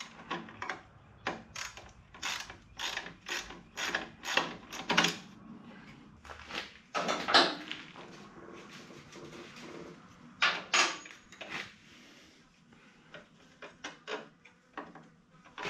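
Hand ratchet with a socket clicking in short strokes, about two a second for the first five seconds, then a few louder clusters and scattered clicks, as a small 8 mm nut is undone.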